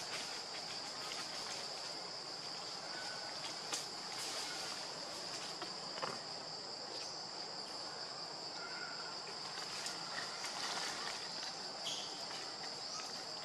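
Steady high-pitched drone of an insect chorus, with scattered light clicks and rustles.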